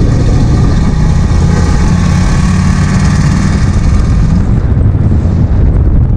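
Ford F-150 pickup driving with a loud exhaust: a steady engine drone under a hiss of road and wind noise that swells in the middle and eases off about four and a half seconds in.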